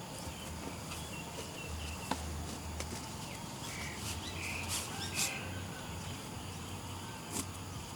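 Countryside ambience: a steady high insect drone with a low hum underneath and short bird chirps about halfway through. A few sharp clicks stand out, the loudest about five seconds in.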